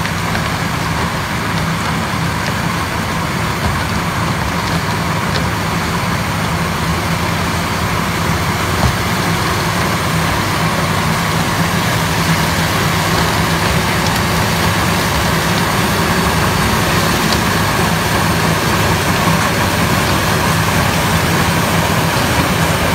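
SMKY basket-type sugarcane harvester running steadily under load while its cutter works through standing cane, growing a little louder as it comes closer.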